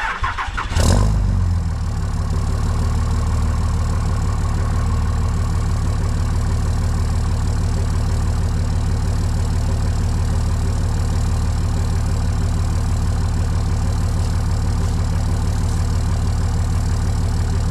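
Pickup truck's 5.9 Cummins inline-six turbodiesel starting, with a brief loud surge about a second in as it catches, then settling into a steady diesel idle.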